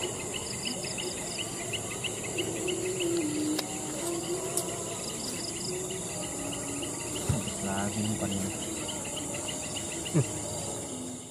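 Evening insect chorus: a steady high-pitched drone with a regular chirping about three times a second.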